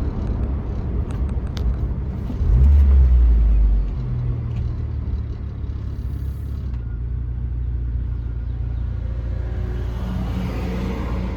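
1999 Jeep Wrangler TJ driving, with a steady low engine and road drone and a louder rumble about two and a half seconds in that lasts a second or so. No knocking is heard from the freshly repaired rear lower control arm.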